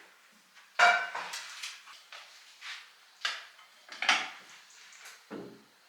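Kitchen clatter: dishes and utensils knocked and set down, about six separate clinks and knocks, a few of them ringing briefly.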